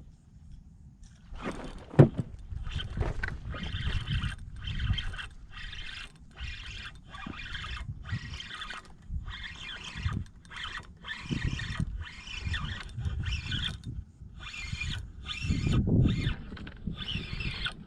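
Fishing reel being cranked in short, even bursts, about two a second, while a topwater lure is worked back to the boat. There is a sharp click about two seconds in, and an uneven low rumble underneath.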